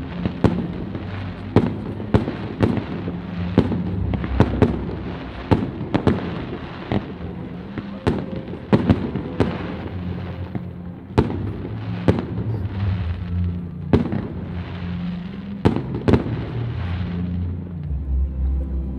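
Aerial fireworks shells bursting in quick succession, a sharp bang every half second to a second over a continuous din. The bangs stop about two seconds before the end.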